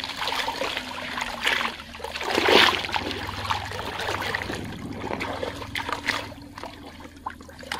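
Shallow pond water splashing and trickling as hands stir it and scoop or pour it into a plastic tub, with a louder splash about two and a half seconds in.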